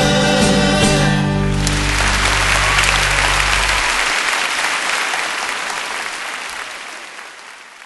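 Three voices with two acoustic guitars hold the song's final chord, which ends about a second and a half in. Audience applause follows and fades away near the end.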